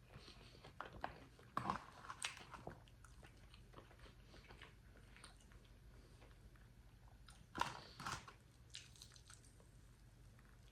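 Faint biting and chewing on a crispy fried chicken tender, with a few crunches about two seconds in and again near eight seconds.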